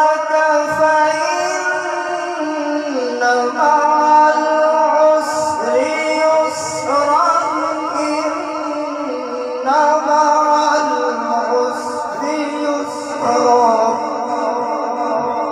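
A male qari reciting the Quran in melodic tajweed style through a microphone and loudspeakers. He holds long drawn-out notes for several seconds each and slides up or down to a new pitch every few seconds.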